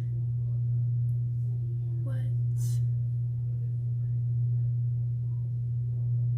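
Steady low electrical hum, one unchanging tone, with a brief faint bit of voice about two seconds in.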